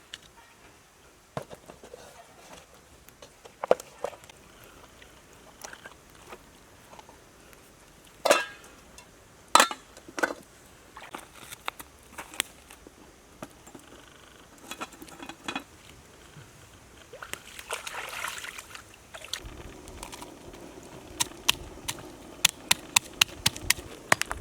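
Food-preparation sounds: scattered knocks and handling noises, then near the end a fast, even chopping with a knife on a cutting board, about three strokes a second.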